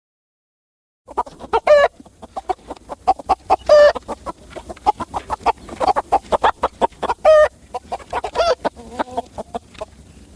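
Chickens clucking in a rapid run of short calls, with a few longer, louder calls among them; the clucking starts about a second in.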